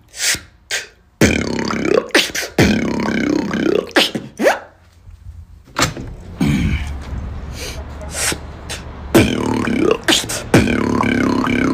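A man beatboxing into a phone microphone: sharp mouth clicks and snare-like hits over a hummed bass, with sung notes that slide up and down. It comes in a few runs, with the longest pause about five seconds in.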